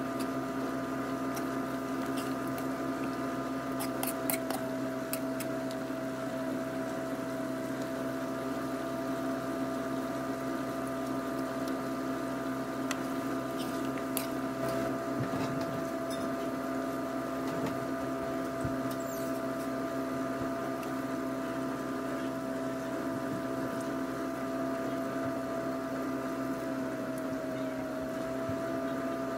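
Chicken adobo simmering in soy sauce in a wok under a steady machine hum of several tones, with a few sharp clicks of the metal spoon against the pan.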